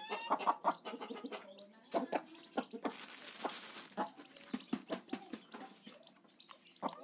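Newly hatched free-range chicks peeping and a mother hen clucking, mixed with many short clicks. A second-long hiss comes about three seconds in.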